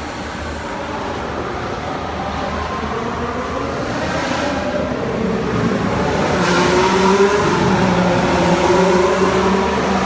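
2015 Formula One cars' V6 turbo engines running past on track, growing louder about halfway through, with engine pitch sliding up and down as they go by.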